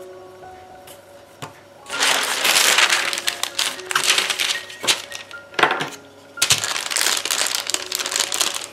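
Sheets of baking paper crinkling and rustling as dough is rolled out between them with a rolling pin. The rolling starts about two seconds in, pauses briefly around the middle, and starts again, over soft background music.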